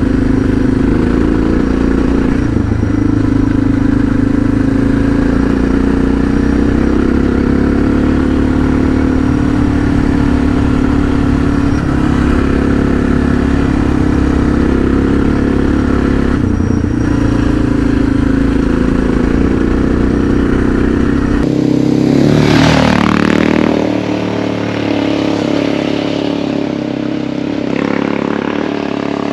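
Suzuki DR650's single-cylinder four-stroke engine running as the bike is ridden over a rutted dirt track, with clatter from the bike over the bumps and a heavy low rumble. About twenty-two seconds in the low rumble cuts out and the engine note dips and then climbs again.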